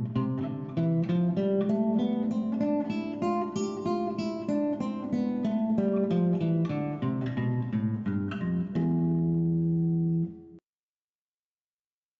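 Classical guitar played fingerstyle: a quick run of single plucked notes, about three a second, ending on a held low note that cuts off suddenly.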